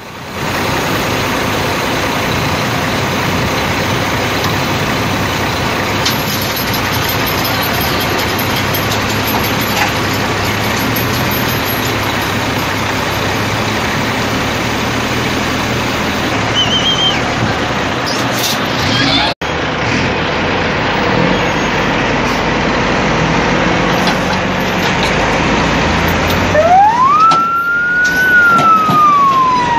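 Steady road and wind noise from a vehicle driving along a highway. About three seconds before the end, an emergency vehicle's siren starts wailing, rising and then falling in pitch, and becomes the loudest sound.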